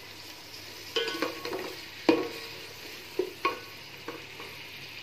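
Sliced onions sizzling in hot oil in an aluminium pot while a wooden spatula stirs them, knocking and scraping against the pot about five times, loudest about two seconds in. A few knocks leave the pot ringing briefly.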